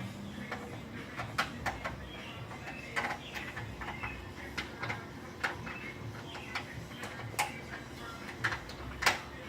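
Irregular sharp clicks and taps of hand tools and small metal fastener hardware being handled, one or two a second, the loudest near the end, over a steady low hum.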